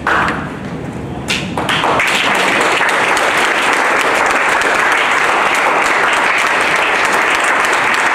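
Audience applauding at a curtain call, the clapping swelling about two seconds in and then running steady and loud.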